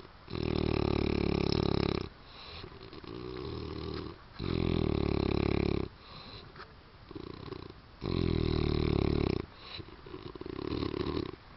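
A man snoring heavily in a deep sleep after drinking: three loud, rattling snores about four seconds apart, each lasting a second and a half to two seconds, with quieter breaths between them.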